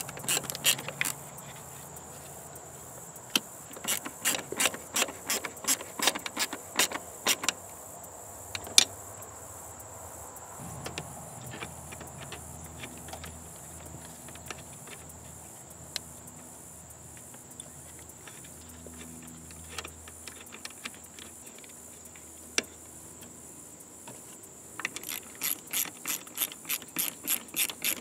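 Hand socket ratchet clicking in quick runs as a bolt is turned, with scattered single clicks of metal handling in between. A steady run of ratchet clicks near the end, a few a second, comes as the 12 mm intercooler bracket bolt is run down.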